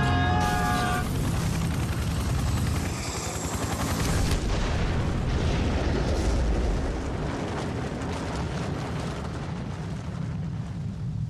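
Dramatized helicopter crash: an impact and explosion with a long, heavy rumble that eases off slightly about seven seconds in.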